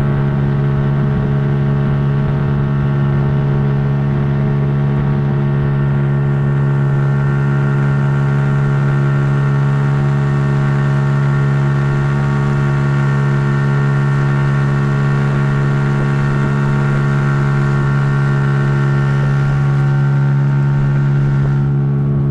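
Boat's outboard motor running at a steady cruising speed, its drone holding one even pitch throughout.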